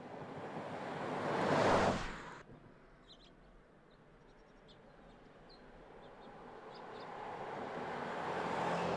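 Toyota 4Runner's V6 engine and tyres on asphalt as the SUV drives past, swelling to a peak about two seconds in and cutting off suddenly. A second pass then builds steadily towards the end, with faint bird chirps in the quieter stretch between.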